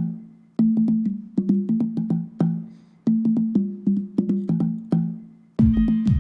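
Background music: a repeating rhythmic phrase of short, sharp pitched notes over a low bass line, the phrase coming round about every two and a half seconds. A heavier beat and a fuller sound come in near the end.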